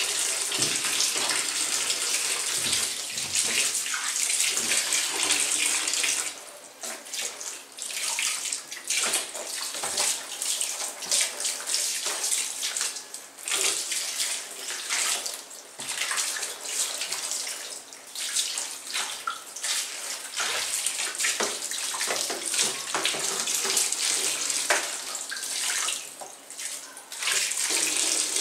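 Tap water running into a sink over a basin of red fruit, splashing as the fruit and then a boat-shaped tray are rinsed under the stream. The flow is steady for about the first six seconds, then becomes uneven and broken as things are moved in and out of it, and steadies again near the end.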